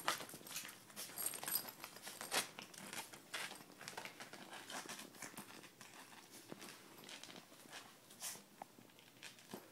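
Chihuahua's claws scratching and scrabbling at the mesh and fabric of a soft-sided pet pen: a run of irregular rustles and scrapes as she tries to climb out.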